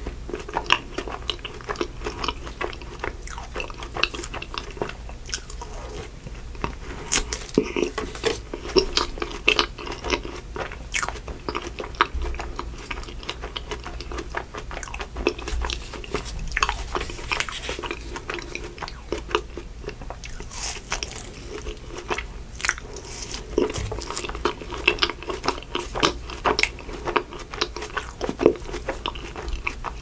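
Close-miked biting and chewing of a chocolate ice cream bar with a crunchy coating: a dense, irregular run of crunches and small wet mouth clicks.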